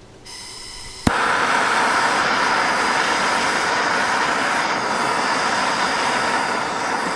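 Handheld Bernzomatic TS8000 gas torch with a Searzall attachment: a faint hiss of gas, then a sharp click of the igniter about a second in as it lights. It then burns with a loud, steady hiss of flame through the Searzall's glowing screens.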